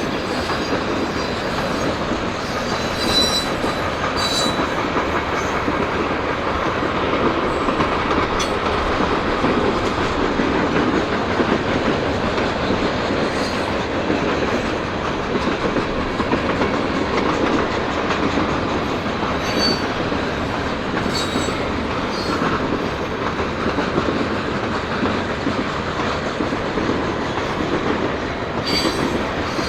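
Freight train cars rolling steadily past, wheels clicking over the rail joints, with a few brief, faint wheel squeals.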